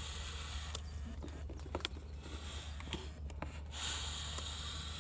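Steady low wind rumble on the microphone, with a few faint clicks about two and three seconds in as a carp rod and reel are handled.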